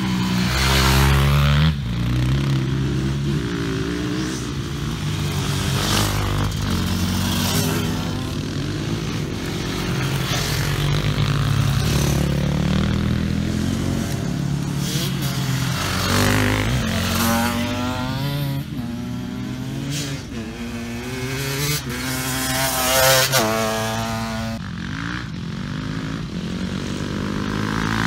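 Enduro motorcycles riding past one after another on a gravel track, their engines revving up and down through the gears as each bike goes by. The loudest pass comes a little past two-thirds of the way in.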